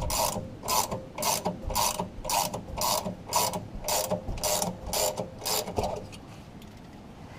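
Hand ratchet wrench clicking in short back-strokes about twice a second as it slowly turns the screw of a bushing puller drawing out a Muncie four-speed's tailshaft bushing; the clicking stops about six seconds in.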